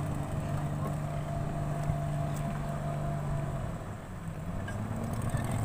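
Boat engine running steadily at sea. Its note dips briefly about four seconds in, then returns a little higher.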